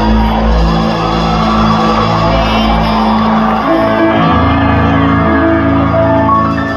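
Live concert music over an arena sound system: sustained keyboard chords and bass that change to a new chord about four seconds in, with the audience shouting and whooping.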